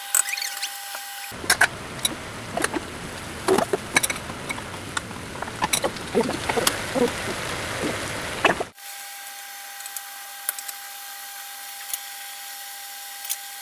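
Vegetables sizzling in a frying pan, with scattered clicks and scrapes of a wooden spatula stirring them. Near the start and over the last five seconds a steady high whine takes over, with only occasional ticks.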